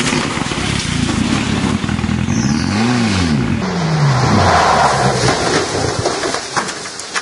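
Rally car engines at full throttle, cut together from several crash clips. About three seconds in, an engine revs up and drops back, and its pitch then falls away, with a few sharp knocks near the end as a car slides off the road into the undergrowth.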